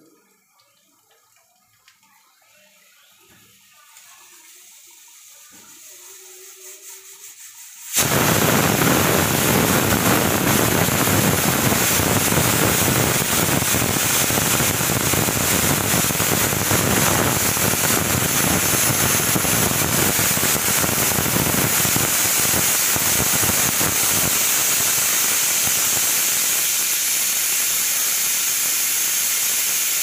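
Aluminium pressure cooker whistling as its weight lifts and vents steam. A faint hiss builds for several seconds, then about eight seconds in a sudden, loud, steady rush of steam starts and runs on for over twenty seconds.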